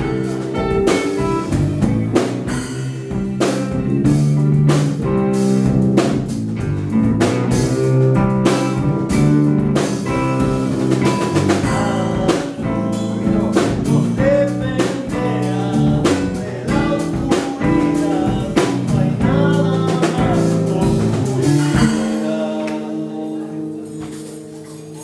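Band music with a drum kit keeping a steady beat under pitched instruments. About 22 seconds in the drums stop and held chords fade out.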